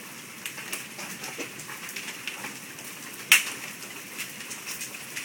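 Large hailstones falling with heavy rain, a steady hiss of rain under many scattered sharp clicks of stones hitting the ground and pavement. One loud, sharp crack of a big hailstone strike comes about three seconds in.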